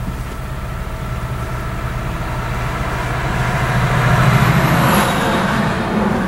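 Steady road and engine noise of a car at highway speed. An oncoming tractor-trailer passes close by: its rush swells to a peak about four seconds in and then fades.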